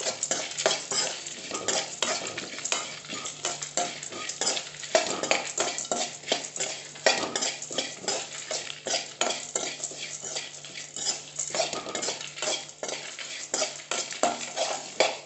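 Spatula stirring and scraping in a metal kadai, roasting coriander seeds, chana dal, dry red chillies and coconut pieces in a little oil for sambar masala: a quick, continuous run of scrapes and clicks as the seeds and lentils rattle against the pan.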